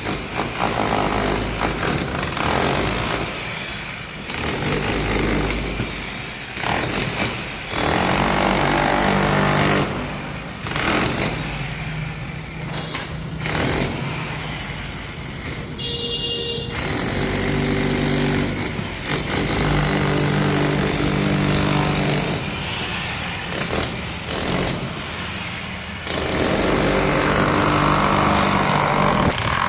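Ralli Wolf RW-5HE 1200 W electric demolition hammer breaking concrete, hammering in runs that stop briefly and start again many times.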